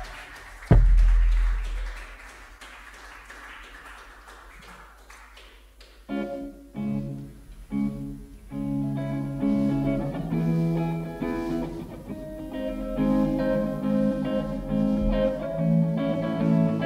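A loud, low band hit about a second in, ringing away over several seconds. Then an electric guitar starts a song intro at about six seconds, playing chords in short stop-start phrases. The band sounds fuller from about twelve seconds in.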